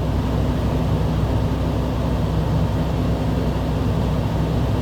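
Steady low drone of a car's engine and running gear, heard from inside the cabin.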